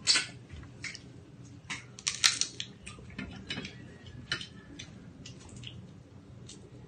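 Close-up mouth sounds of chewing seafood, with loud crunching and smacking in the first couple of seconds, then softer scattered cracks and clicks as a shellfish shell is picked apart by hand.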